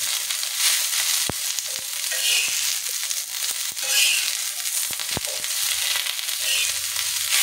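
Pumpkin leaves, garlic and green chillies sizzling in mustard oil on a tawa over a low flame, stirred with a metal spatula that gives a few sharp taps and scrapes against the pan.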